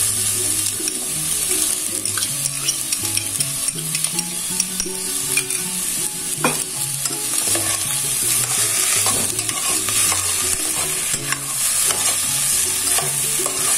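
Diced squash and corn kernels sizzling as they sauté in an enamel pot, with a metal spoon stirring and scraping through them. A sharp tap rings out about six and a half seconds in.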